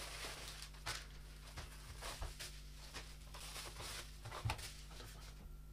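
Faint rustling and a few light clicks of a bubble-wrap package being handled on a wooden table.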